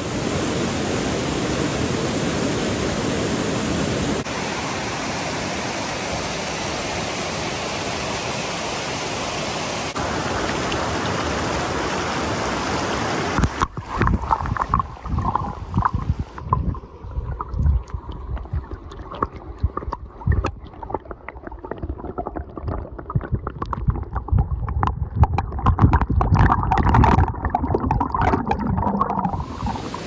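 Snowmelt-fed mountain creek rushing over rocks in a steady, even rush of water, with abrupt cuts between shots. About 14 seconds in it changes to close, uneven gurgling and splashing with low thuds, as heard with the microphone at or under the water's surface.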